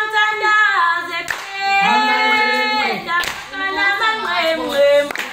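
Women singing together with hand clapping, sharp loud claps landing about every two seconds under the held sung notes.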